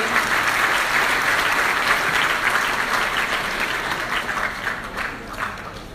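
A round of applause from an audience and the people on stage: dense, steady clapping that thins out and dies down over the last second or so.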